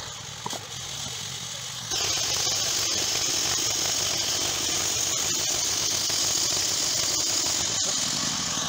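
Portable band sawmill powered by a small petrol engine: the engine runs, and about two seconds in it comes up to speed and the band blade cuts into the wooden beam with a steady high hiss over the engine's drone.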